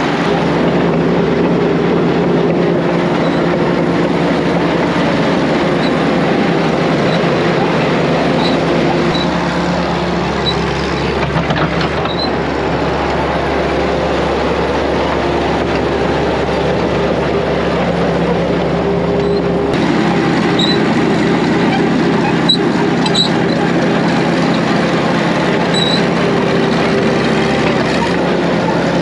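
1950s Caterpillar D6 crawler dozer's diesel engine running steadily as the machine crawls along on its steel tracks, with occasional short high squeaks.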